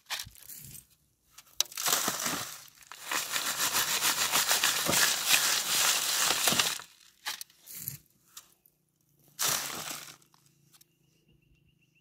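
Rustling, crinkling noise in bursts, the longest lasting about four seconds in the middle, followed by a quieter stretch with a faint steady hum.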